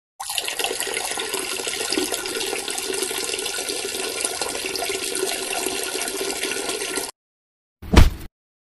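A steady stream of liquid splashing, the sound of someone urinating, runs for about seven seconds and cuts off suddenly. A short loud burst follows about a second later.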